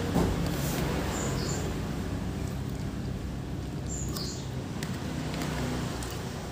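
Light clicks of a metal spoon and fork in a plastic bowl over a steady low hum. A few short high bird chirps come in the first second and a half and again about four seconds in.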